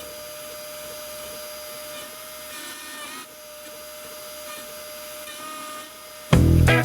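Shapeoko 3 XXL CNC router running steadily, its spindle giving a constant whine over a hiss. Background music cuts back in near the end.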